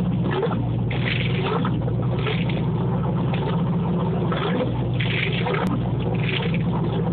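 2004 Ski Nautique SE's 350 V8 inboard, rated 330 hp, idling steadily out of the water on a garden-hose cooling feed. Cooling water splashes out of the transom exhaust.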